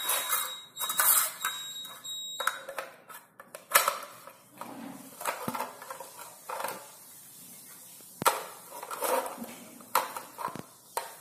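Small plastic toy blocks knocking and clicking as they are picked up, set on a stone floor and stacked, in separate sharp clacks. A thin, steady high-pitched beep sounds twice in the first couple of seconds.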